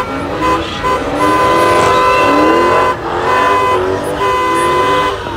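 Car horns honking in repeated long blasts, over car engines revving up and down.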